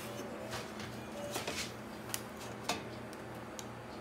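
Faint scattered clicks and taps as kitchen tongs handle foil-wrapped rolls in a stainless steel steamer pot, over a faint steady low hum.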